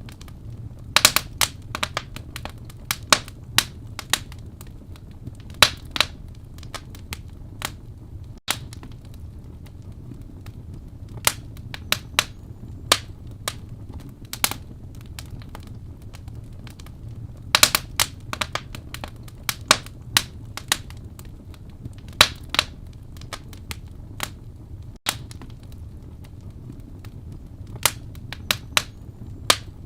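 Wood fire burning in a fireplace: irregular sharp pops and snaps of burning wood, some in quick clusters, over a low steady rumble of the flames.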